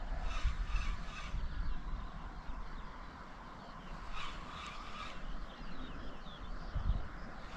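Wind rumbling on the microphone with faint birdsong, and twice a short rasping burst lasting about a second, a few seconds apart.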